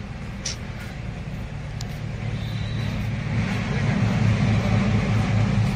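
Steady low rumble of outdoor background noise, growing louder over the last few seconds.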